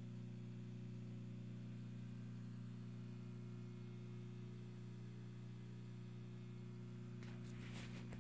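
A steady low hum that holds one pitch throughout, with rustles and knocks of handling beginning about a second before the end.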